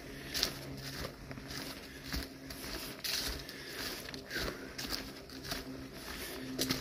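Footsteps at a steady walking pace crunching and rustling through dry fallen leaves on a forest trail.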